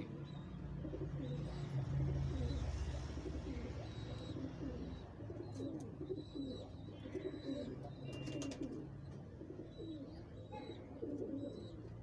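Domestic pigeons cooing, a steady run of short, low coos over a faint low hum.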